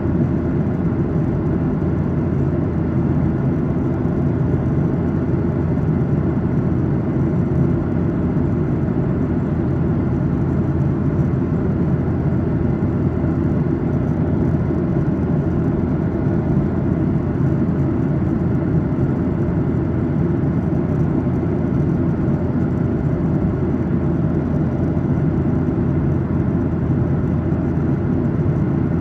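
Steady, low-pitched cabin noise of a Boeing 737-800 at cruise: airflow over the fuselage and its CFM56-7B engines, heard inside the cabin.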